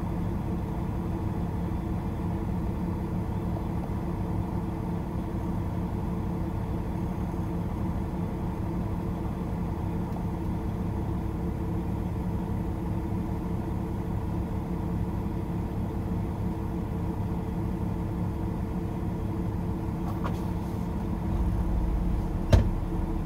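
Diesel engine of a semi truck running steadily, heard from inside the cab as a low, even hum. Near the end, the low rumble swells for about a second and is followed by a single sharp click.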